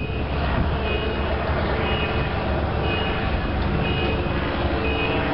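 An electronic warning beeper sounding in a steady on-off pattern, about one half-second beep every second, over a steady low rumble.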